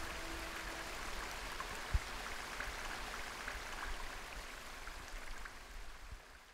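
Stream water running over rocks, a steady rush with small scattered drips, fading out near the end. The last held notes of music die away at the start, and there is a single low thump about two seconds in.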